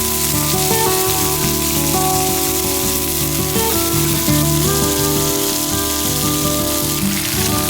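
Instrumental background music with held notes and chords, over the steady hiss of food sizzling and frying in a pan.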